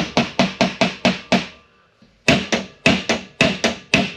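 Quick hammer blows on a chisel against a steel fitting clamped in a bench vise, each strike ringing sharply: about seven strokes, a pause of about a second, then about nine more. The blows are working to drive out a tap snapped off inside the fitting's threaded hole.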